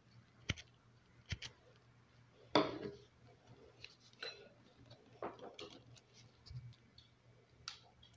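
Wire whisk clicking and scraping against a mixing bowl in scattered strokes as batter is mixed by hand. The loudest is a short scrape about two and a half seconds in.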